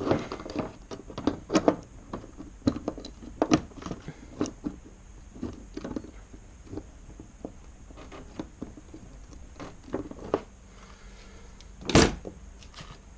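Irregular small clicks and knocks of hand tools working a rudder cable and its crimp, flattening the crimp onto the cable, with one louder thump about twelve seconds in.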